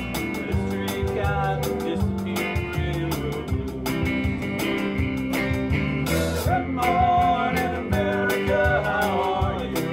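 A small band playing folk-rock live, with strummed acoustic and electric guitars and keyboard under a steady beat, and a sung melody.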